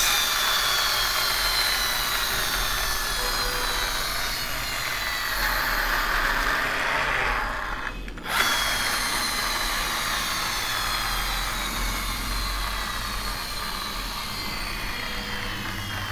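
A continuous drill-like whirring with a faint whine that slowly falls in pitch. It cuts out for a moment about eight seconds in and starts again.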